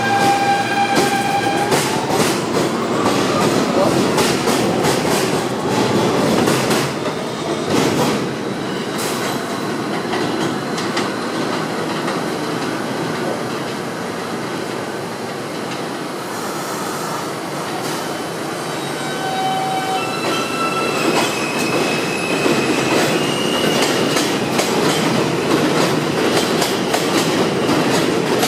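R160B Siemens subway train pulling out and running along elevated track. Its traction motors whine, rising in pitch about two seconds in, over a steady rumble and wheels clicking over rail joints, with more motor tones coming in about twenty seconds in.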